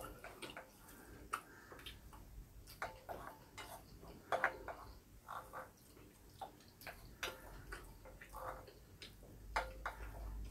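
Faint eating sounds: a metal spoon clicking and scraping against a ceramic bowl, with chewing, as irregular soft ticks and clicks several times a second.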